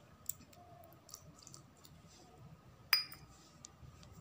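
Light metal clinks on a stainless steel mixing bowl holding cake batter and a wire whisk: a few faint ticks, and one sharp ringing clink about three seconds in.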